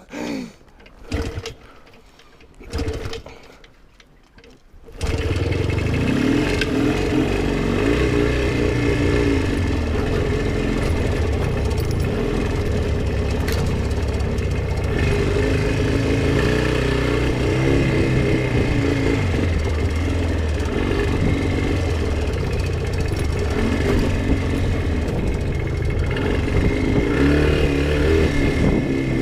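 Jawa 350 type 638 two-stroke twin motorcycle engine starts abruptly about five seconds in and keeps running with uneven, wavering revs under constant throttle. The engine runs lean and will not idle on its own.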